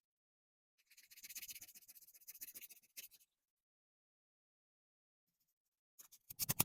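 Hand sanding of set body filler with 320-grit sandpaper: a run of dry, scratchy rubbing strokes for about two seconds, then a few sharp clicks near the end.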